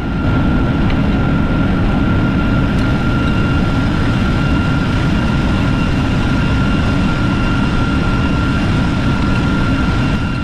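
Steady din of a ship's engine-room machinery: a continuous low rumble with a thin, constant high whine running through it.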